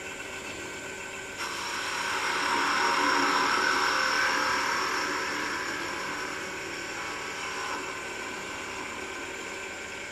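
Wood lathe running while a small hand-held drill bit bores into the end of a spinning mahogany spindle. The cutting noise swells about a second and a half in and eases off after about five seconds over the lathe's steady hum.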